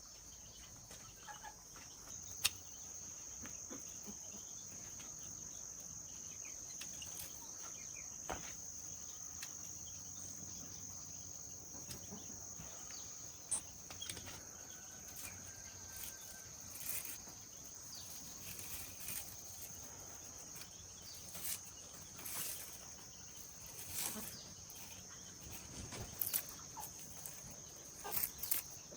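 A steady, high-pitched insect chorus trilling without a break, louder from about two seconds in. Scattered light clicks and knocks sound over it, more often in the second half.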